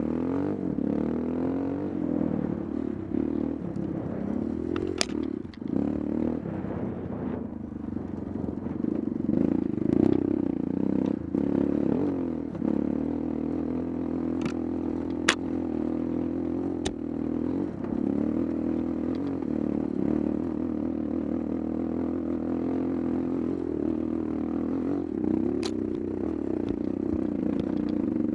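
GIO X35s dirt bike engine running while riding single track, its pitch rising and falling with the throttle. Sharp clicks and knocks sound now and then over it, the loudest about halfway through.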